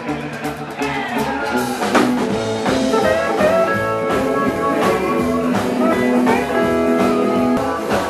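Live band playing loudly on stage: electric guitar, upright bass and a drum kit keeping a steady beat.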